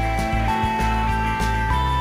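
Background music: a melody of held notes stepping upward over a steady bass, with light percussion strokes.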